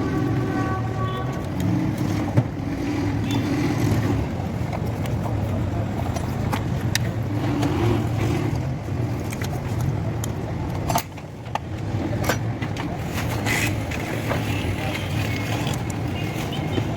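A car running, a steady low drone with scattered light clicks and a brief drop in level about eleven seconds in.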